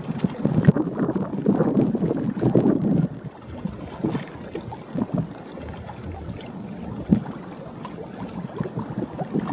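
Wind gusting against the microphone in uneven, rumbling buffets, strongest in the first three seconds and easing after, with a few light knocks.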